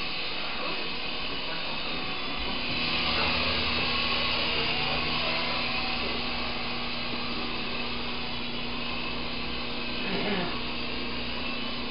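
A red S107G-type mini coaxial RC helicopter flying, its rotors and small electric motors whirring steadily. The whir grows a little louder for a couple of seconds about three seconds in.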